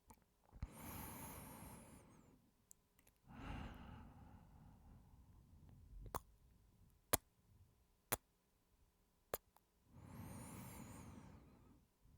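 Close-miked breathing into the microphone: three long sighing breaths, about a second in, around three and a half seconds and near the end, with four short, sharp kiss smacks between the second and third.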